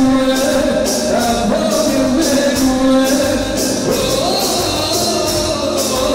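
Dance music with a singing voice over a steady beat of about two strokes a second.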